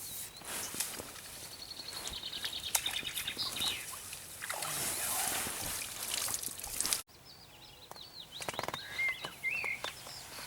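Water sloshing and splashing with scattered knocks, the wash loudest midway, then a sudden cut; a bird calls with short rapid chirps near the end.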